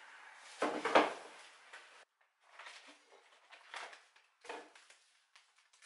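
Glazed ceramic donabe clay pot and its lid being handled: a loud knock about a second in as the lid is taken off, then several softer clinks and scrapes of ceramic.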